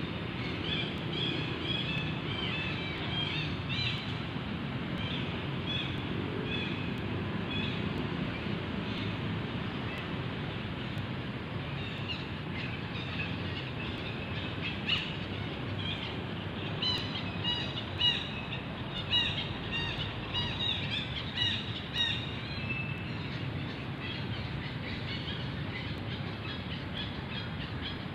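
A steady low rumble with bursts of short, high chirping calls, a few near the start and a louder run of them through the middle of the stretch.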